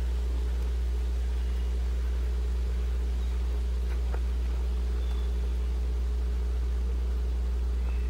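Steady low machine hum with an even, unchanging level and a faint click about four seconds in.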